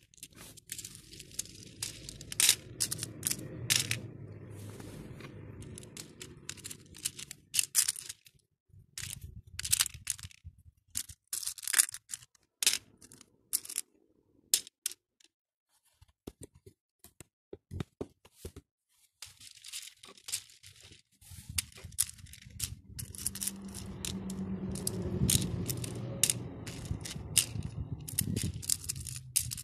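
Acrylic beads clicking and rattling against each other and the clear plastic bead-tray compartments as they are picked through and dropped in, in irregular quick clicks. A low rubbing rumble of handling runs under the clicks for the first several seconds and again near the end, with only scattered clicks in the middle.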